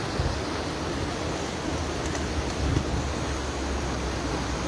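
Steady rushing of shallow flowing river water and wind on the microphone, with a few soft splashes as a man wading in the stream gathers in a cast net.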